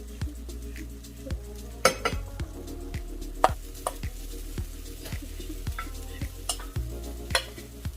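Takoyaki batter sizzling in a takoyaki pan while picks turn the balls, with sharp clicks and scrapes of the picks against the pan. Background music with a steady beat plays underneath.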